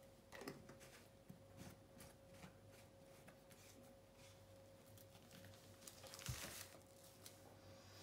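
Near silence with faint rustling and small clicks of handling, and a soft knock about six seconds in, over a faint steady hum.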